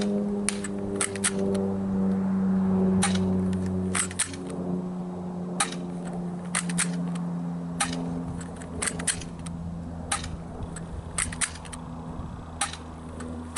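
Crosman Stinger P9T spring-powered airsoft pistol fired over and over, a sharp snap roughly once a second, some followed closely by a second click, over a steady low hum.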